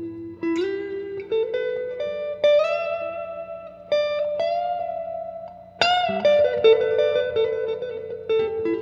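Electric guitar, a Fender Stratocaster with Klein Jazzy Cat pickups, played through a '68 Custom Princeton Reverb amp with a Celestion Gold 10-inch speaker and a touch of reverb. It plays a slow single-note line with notes slid up into, and a harder-picked note about six seconds in.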